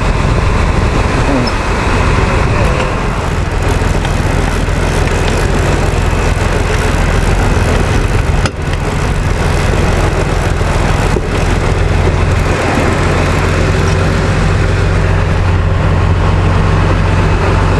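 Sportfishing boat's engine running steadily under way, a low even drone, with the rush of wind and churning wake water over it.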